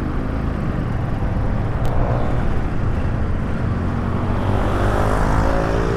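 Motorcycle engine running while riding through city road traffic. From about two and a half seconds in, its pitch rises steadily as it accelerates.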